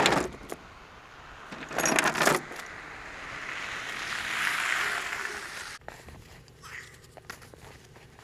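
A steel tow chain clinking and rattling in two loud bursts, then a pickup truck's approach on a dirt road, a rushing sound that swells and fades and cuts off suddenly about six seconds in, followed by faint clinks of the chain at the stuck truck's tow hook.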